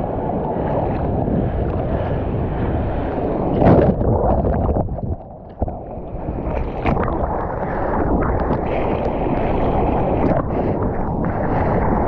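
Seawater sloshing and splashing around a surfer's action camera at the waterline, with wind on the microphone. A loud splash comes about four seconds in, and just after it the sound goes muffled for about half a second.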